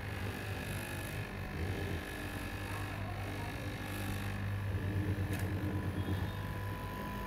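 Electric straight-knife fabric cutting machine running with a steady hum as its upright reciprocating blade cuts through a tall stack of fabric layers.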